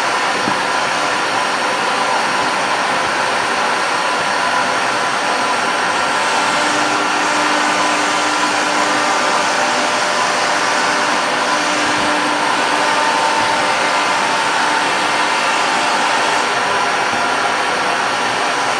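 ATC CNC router running steadily while engraving a door: the spindle's high whine over the rush of dust extraction. A lower tone rises out of the noise from about a third of the way in to about two thirds, as the cutting load changes.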